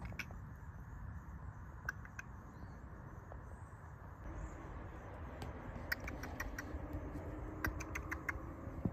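Scattered small crackles and clicks of a cat nosing about in dry leaves and grass, bunching together in the last few seconds, over a low rumble.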